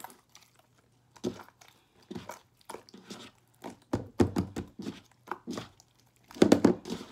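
Hands kneading and stretching sticky, freshly mixed borax slime: irregular wet squishes and crackles, coming closer together and loudest near the end.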